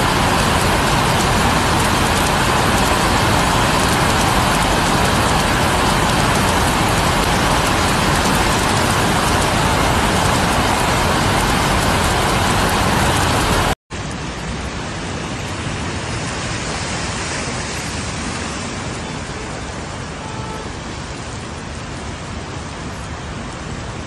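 Heavy rain falling on a paved street, a loud steady hiss. It cuts off suddenly about fourteen seconds in and gives way to a quieter steady rush of flood water, with cars driving through it.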